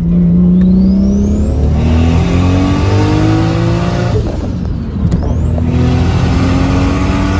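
Turbocharged car engine at full throttle in second gear from inside the cabin, revs climbing steadily with a high turbo whistle that rises and then holds. About four seconds in the revs drop at a gear change, and a second climb follows with the whistle returning. The pull is a road-tuning run on a newly fitted turbocharger.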